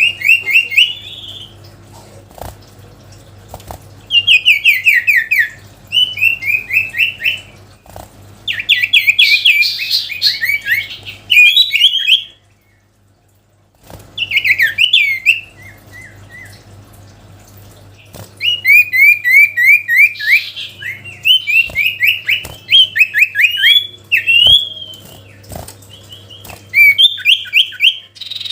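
A sirtu songbird singing actively in loud phrases of rapid repeated chirped notes, burst after burst with short pauses between. This is the kind of challenge song used to call rival birds. There is a brief silence about halfway through.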